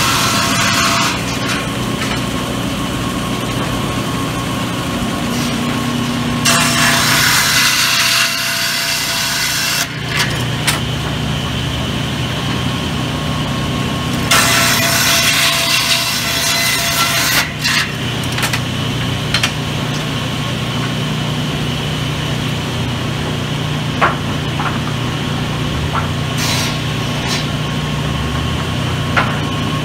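Sawmill circular saw bench running steadily, with several loud passes of the blade ripping lengthwise through teak planks, the two longest lasting about three seconds each.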